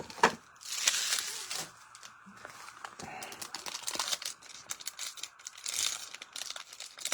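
Crinkling and rustling of trading-card pack wrappers and cards being handled, with a few sharp clicks.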